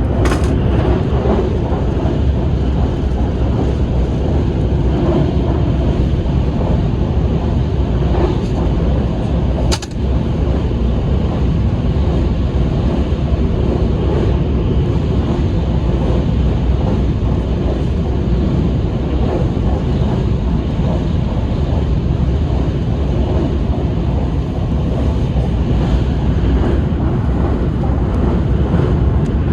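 Train running at speed: a steady low rumble, with one brief sharp click about ten seconds in.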